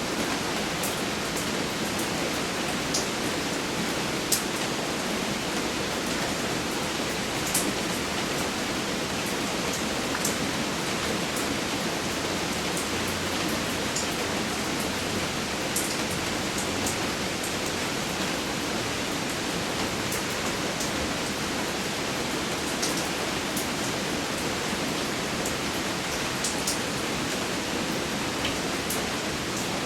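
Steady rain falling, a constant even hiss with scattered sharp drip ticks throughout.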